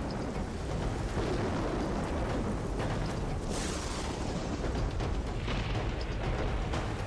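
Sound-designed hurricane storm: a deep, steady rumble of wind and heavy sea, swelling in three hissing surges like waves breaking.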